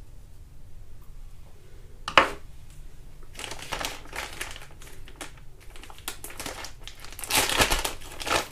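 Plastic bag of shredded mozzarella crinkling as it is handled and opened, loudest near the end. A single sharp knock comes about two seconds in.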